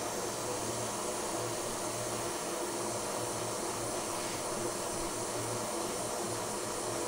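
Hot air rework station blowing a steady hiss of hot air onto an iPhone 8's A11 CPU, reflowing the chip's solder balls onto the logic board.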